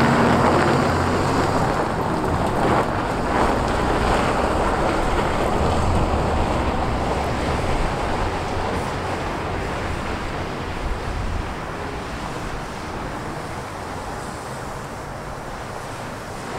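A 2007 Ford F650 dump truck's Cummins ISB 5.9-litre diesel running as the truck drives off over gravel, with a rushing noise of tyres on the gravel. The sound fades steadily as the truck moves away.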